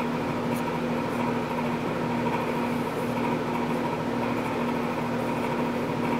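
Steady machine hum with a low tone and a fainter higher whine, and a faint light click about half a second in.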